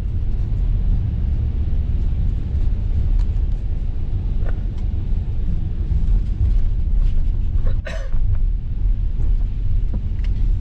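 A steady low rumble with a faint hiss above it, starting abruptly, with a brief knock about eight seconds in.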